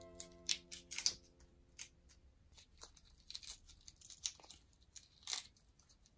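Shells being peeled by hand off cooked shrimp, with irregular small crackling snaps and tearing sounds. Background music trails off in the first second.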